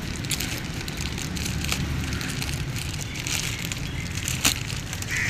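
Plastic packaging wrap and tape crinkling and tearing as they are pulled off by hand, a run of quick crackles with a few sharper snaps, over a steady low rumble.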